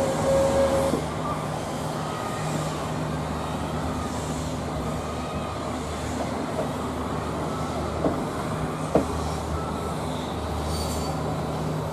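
Passenger train running, heard from one of its coaches: a steady rumble of wheels on rails. A steady high tone stops about a second in, and there are two sharp clicks about eight and nine seconds in.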